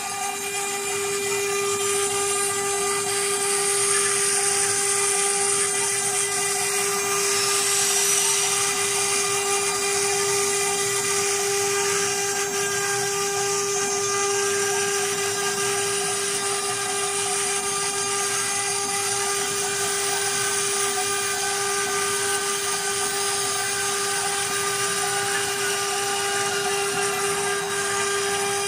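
6090 CNC router's spindle running at high speed with a steady high whine while its small engraving bit cuts lettering into an MDF board.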